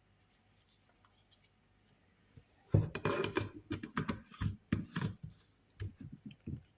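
A quiet start, then from about three seconds in a run of irregular knocks, clatters and rubbing from things being handled on a kitchen worktop, not a blender motor running.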